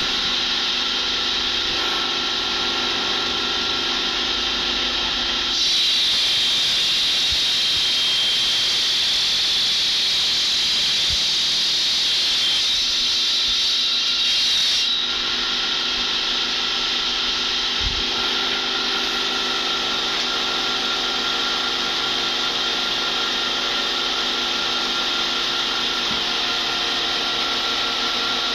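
Water-cooled stone-cutting circular saw running steadily with a constant motor hum and hiss. From about five seconds in until about fifteen seconds in, a louder, brighter hissing grind rises over it as the blade cuts through stone under running water.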